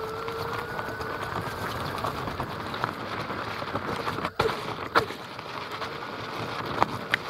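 Onewheel GT riding over dirt and gravel, picked up by a microphone inside the board's rail: a steady gritty rolling noise from the tyre, with a thin hub-motor whine that rises slightly and fades out after about two seconds. A few sharp clicks come in the second half.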